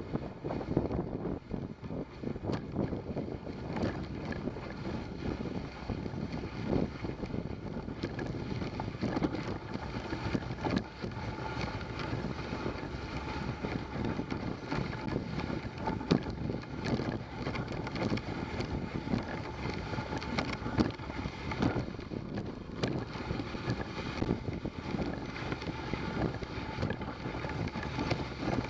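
Dog sled running along a snowy trail: a steady scraping hiss of the runners on snow, dotted with frequent small knocks and rattles from the sled, with wind buffeting the microphone.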